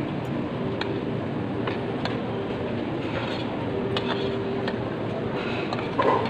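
Steady restaurant background din, with scattered light clinks of utensils against bowls and dishes and a louder knock about six seconds in.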